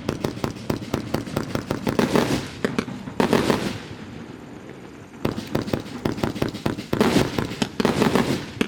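Consumer fireworks cake from a 640-shot set firing in rapid volleys of crackling reports. The volleys thin out around four to five seconds in, then come thick again.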